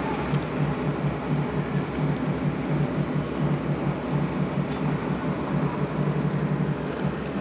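Steady mechanical hum with a hiss, the low hum fluttering rapidly, and a few faint light clicks.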